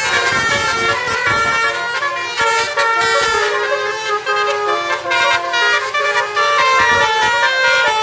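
Basuri telolet horn on a car playing a tune: several horn tones sounding together, stepping quickly from note to note without a break.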